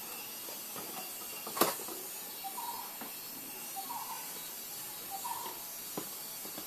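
Steady background hiss, with one sharp click about a second and a half in and a softer click near the end as the headphone cable is picked up. Faint short chirps recur every second or so.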